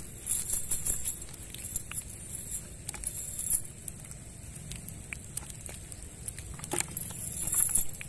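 Rustling and scattered small clicks from a nylon cast net being handled as small fish are picked out of its mesh. The rustle comes in short spells.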